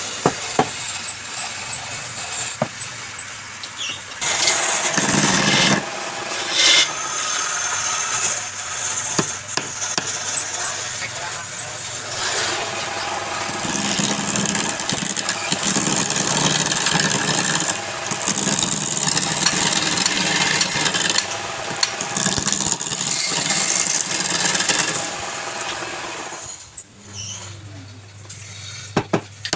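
Woodturning lathe running with a steady low hum, while a turning tool cuts into the spinning workpiece in stretches, making a scraping hiss that swells and eases. The cutting eases off near the end.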